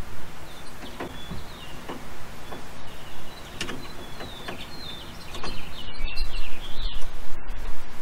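A metal screwdriver shaft scraping and clicking against the retaining clip of a hydraulic line as the clip is run up into the fitting on a convertible-top hydraulic ram: short squeaky scrapes and a few light clicks. A low rumble comes in for the last two seconds.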